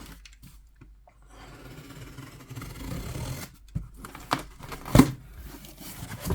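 A parcel's packaging being torn and pulled open by hand: a spell of rustling, tearing noise, then several knocks as the contents are handled, the loudest about five seconds in.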